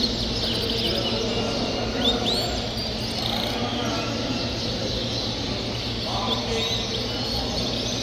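Caged canaries chirping: scattered short, high chirps and calls, with a steady low background din.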